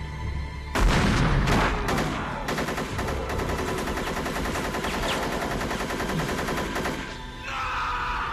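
Film gunfight: a few heavy gunshots, shotgun among them, about a second in, then a rapid, dense volley of gunfire for about four and a half seconds that stops near the end.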